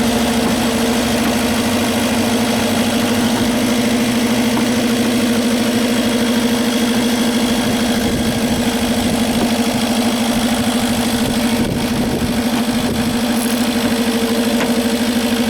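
Porsche Cayenne engine idling steadily, a constant even hum.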